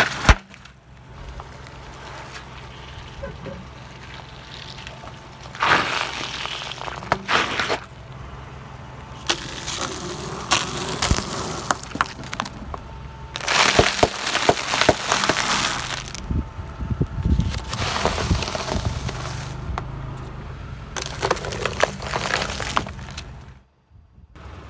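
A car tyre rolling over and crushing objects in several separate bouts: liquid-filled balloons, plastic bottle caps among water beads, and juice cartons. There are sharp cracks and pops.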